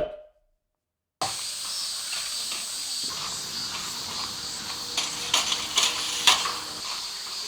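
Campsite ambience starting after about a second of silence: a steady high hiss with faint steady high-pitched tones, and a few sharp clicks and knocks from about five seconds in.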